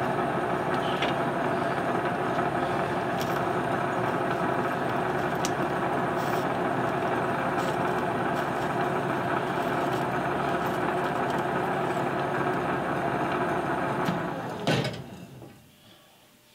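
Metal lathe running in back gear at about 175 RPM with the half nut engaged, a threading tool taking a light cut in stainless steel; the gear train gives a steady whine. Near the end the lathe is switched off with a knock and spins down quickly.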